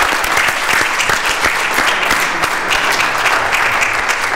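Applause: a chamber full of legislators clapping steadily.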